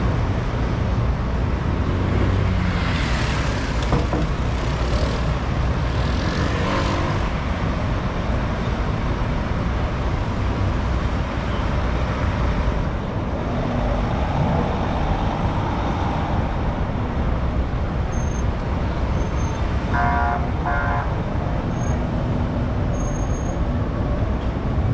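Steady city street traffic noise, with vehicles running and passing and a few hissy swells early on. Two short tonal toots sound about twenty seconds in.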